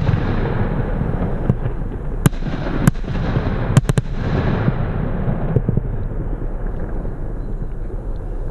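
Piromax Titanium Salute firework battery firing: sharp salute cracks a little over two seconds in and near three seconds, then a quick run of three near four seconds, over a continuous rumbling noise of the shots that thins out after about five and a half seconds.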